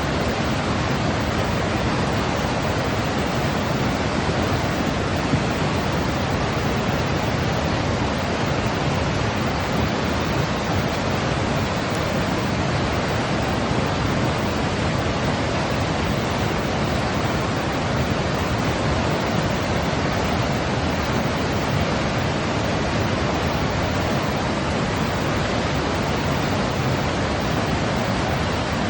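Steady, unchanging sleep-aid noise, an even hiss-like rush that is heavier in the lows than in the highs, played for soothing a baby.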